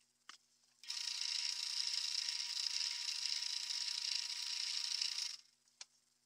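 A pressurized spray hissing steadily for about four and a half seconds, with a faint steady whistle under it. A short click comes just before it starts and another just after it stops.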